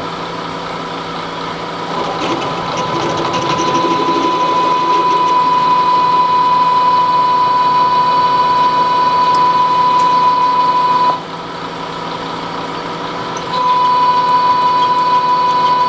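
Milling machine spindle running with an 8.5 mm twist drill cutting into a broken M16 steel stud at low speed, giving a steady whine over the machine's hum. The cut drops away for a couple of seconds about eleven seconds in, then picks up again.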